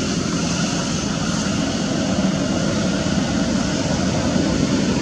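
Steady low rumbling background noise with a fainter hiss above it, unbroken and unchanging.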